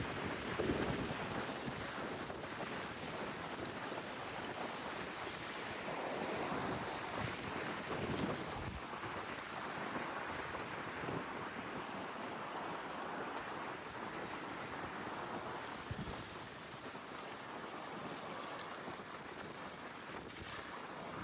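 Rainwater rushing in a flowing stream, a steady wash of water, with wind buffeting the microphone in gusts, strongest in the first second.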